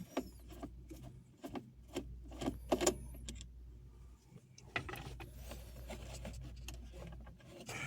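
Small irregular clicks and light metallic clinks of loose Phillips screws and a screwdriver being handled and dropped into a tray, over a steady low hum.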